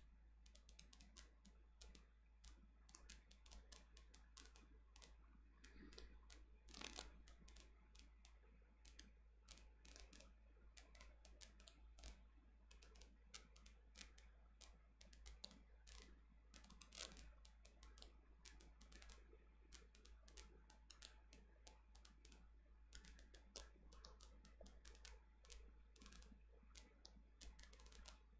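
Near silence: quiet room tone with a steady low hum and faint, irregular small clicks.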